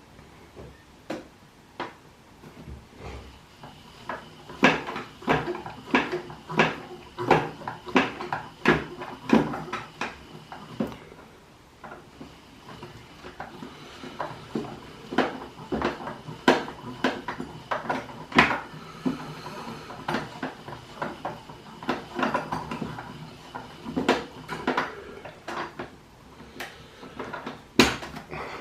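Klein Miele toy washing machine clattering: hard plastic clicks and knocks, about two a second, in two long runs with a short lull in between.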